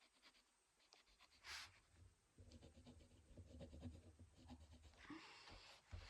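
Faint scratching of a mechanical pencil's lead drawing strokes on paper.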